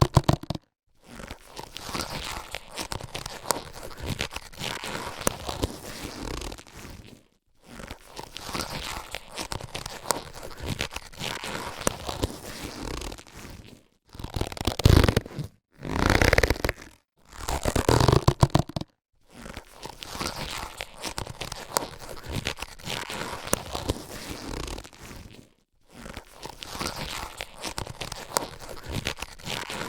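Latex surgical gloves being handled, stretched and rubbed: crackly rubbery rustling and squeaking in stretches of several seconds, broken by brief silent pauses, with louder bursts about halfway through.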